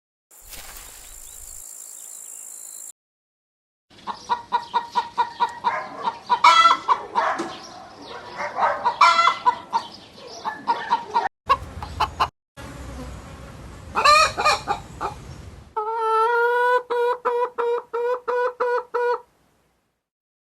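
Fowl clucking and calling in several abruptly spliced takes, after a short high hiss at the start. It ends with a run of about ten even, pitched calls at roughly three a second.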